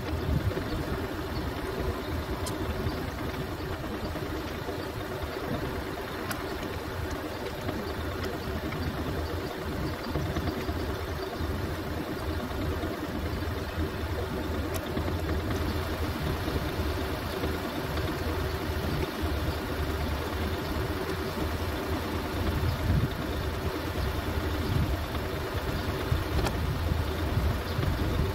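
Mercedes-Benz Actros truck's diesel engine idling steadily, with a few faint clicks over it.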